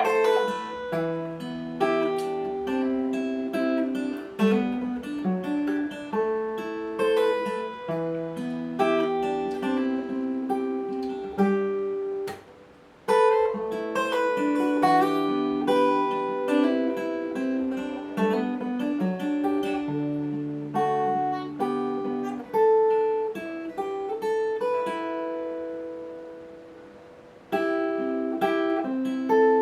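Steel-string acoustic guitar, a copy of a Taylor 314ce, played with a capo at the seventh fret. It plays picked chord patterns, with a short break about twelve seconds in, and near the end one chord is left to ring and fade before the playing starts again.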